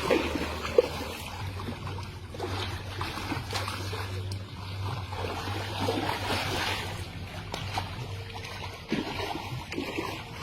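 Water splashing and trickling in irregular swells, with a few sharp knocks, over a steady low hum.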